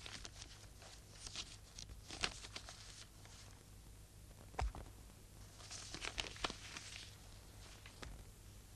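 Faint rustling and crinkling of paper wrapping as a small package is unfolded and a cloth item lifted out, with one soft knock about halfway through.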